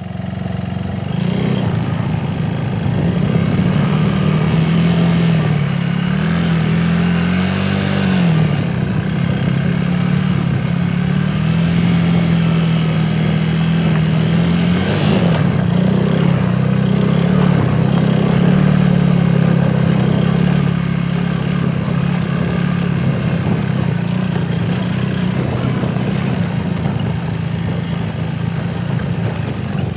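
A small engine running steadily, its pitch drifting up and down a little as it goes.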